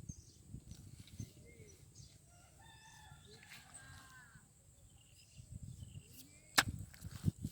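A rooster crowing once, a drawn-out call of about a second and a half. Near the end a single sharp knock is the loudest sound, over a low rumbling.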